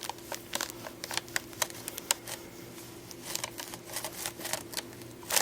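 Paper sheet on a chiropractic table crinkling, with scattered soft clicks and light rustles as the patient's head and neck are positioned, over a faint steady hum.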